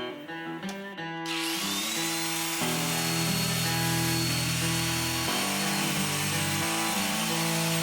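Background music with a steady guitar-led beat. Over it, an electric power tool spins up about a second in, its whine rising quickly to a steady pitch, and runs steadily under a broad hiss.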